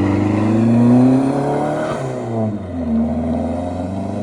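A car's turbocharged SR20DET four-cylinder engine, swapped into a GAZ-24 Volga, accelerating. Its pitch climbs for about two seconds, drops briefly, then climbs again.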